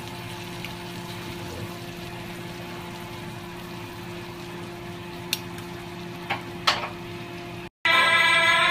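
Steady hum and hiss of kitchen background noise, with a few sharp clicks a little past halfway. Near the end it cuts to background music.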